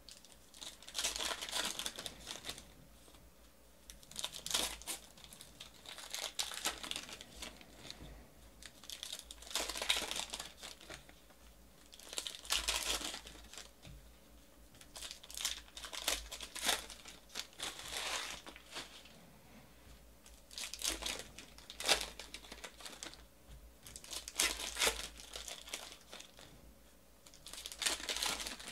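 Hands tearing open and crinkling the wrappers of 2018 Panini Classics Football trading card packs, one rustling burst every two to three seconds.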